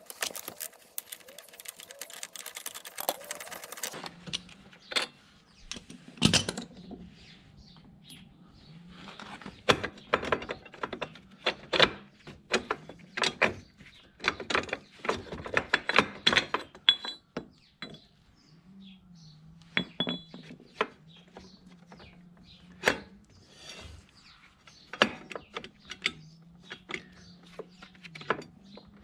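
Hand tools clicking and clinking against metal scooter parts in a string of short, irregular knocks, over a low steady hum.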